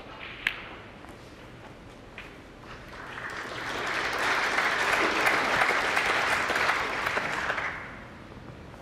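Snooker crowd applauding, swelling about three seconds in and dying away near the end, for a pot that puts the player over the winning line in the frame, barring snookers. A single sharp click comes about half a second in.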